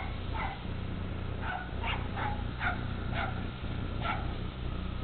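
Small dog yapping, about seven short, high-pitched barks at uneven intervals.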